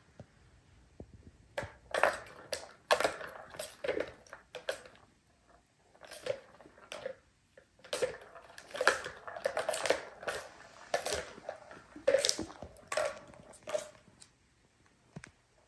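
Plastic balls rattling and clattering around the tracks of a plastic tower cat toy as a kitten bats at them, in irregular bursts of clicks that start about a second and a half in and stop shortly before the end.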